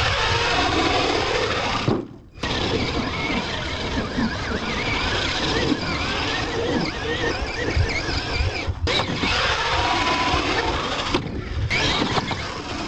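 R/C monster truck motor and drivetrain whining, the pitch rising and falling as the truck is throttled up and down. The sound breaks off briefly a few times.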